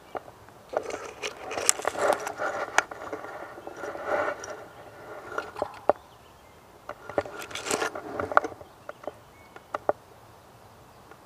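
Twigs and pine branches scraping and snapping against a shotgun and its barrel-mounted camera as the gun is moved through brush, with crackles of dry leaves. It comes in irregular bursts of rustling and sharp clicks, the longest about a second in and again near eight seconds.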